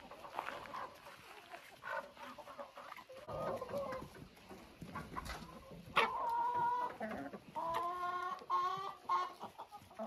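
Chickens clucking and calling. From about six seconds in come a few drawn-out calls, each about a second long.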